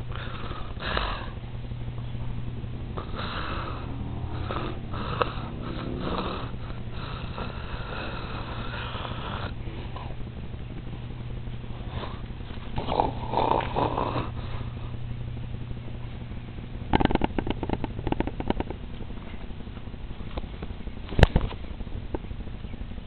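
A puppy sniffing and snuffling, in irregular spells over a steady low hum, with scattered clicks and one sharp knock about twenty-one seconds in.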